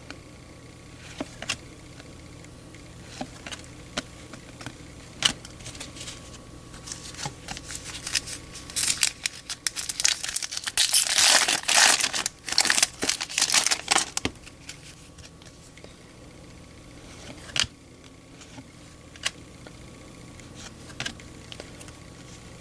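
A foil trading-card pack wrapper being torn open and crinkled for several seconds near the middle, with scattered light clicks and taps of cards being handled before and after.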